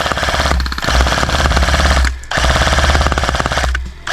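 Airsoft gun firing full-auto in long bursts of rapid clicking, broken by short pauses about every second and a half, as cover fire on a countdown.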